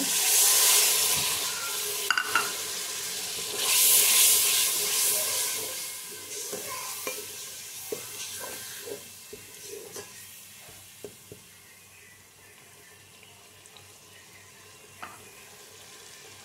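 Water poured into a pot of hot fried onion and spice masala, sizzling loudly as it hits the oil, with a second loud burst of sizzle a few seconds later. A spoon then knocks and scrapes in the pot with scattered clicks while the sizzle dies down to a quieter simmer.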